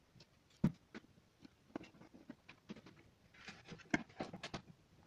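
Scattered light clicks, taps and rustles of hands handling cables and parts on an opened LED TV, with one sharper knock under a second in and a busier run of clicks and a brief rustle around three and a half to four and a half seconds in.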